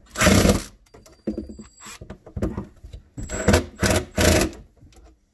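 Cordless drill running in four short bursts as it drives the disposal mounting-ring screws tight against the sink flange.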